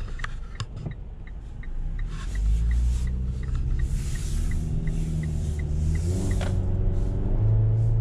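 Turn-signal ticking, about three ticks a second, inside the cabin of a 2024 Mitsubishi Eclipse Cross while it pulls away. The 1.5-litre turbo four's note rises with road noise under it. The ticking stops about six seconds in as the engine note climbs again and then holds steady.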